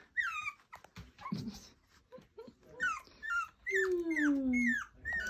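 Two-week-old Nova Scotia Duck Tolling Retriever puppies squeaking and whimpering: a string of short, high squeals that fall in pitch, with a longer, lower falling sound about four seconds in.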